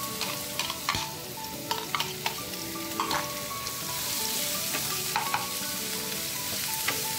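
Chopped onions sizzling in hot oil in a nonstick kadai as a wooden spatula stirs them, with scattered sharp clicks and knocks. The sizzle grows a little stronger about halfway through.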